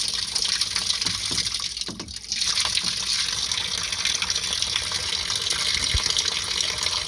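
Water pouring from a plastic jug into the tub of a small Costway portable washing machine, a steady gushing splash. The flow briefly falls off about two seconds in, then runs on.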